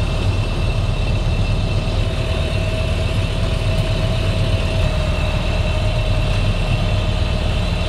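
Sailboat's inboard engine running steadily under way, a low drone with a thin steady whine above it.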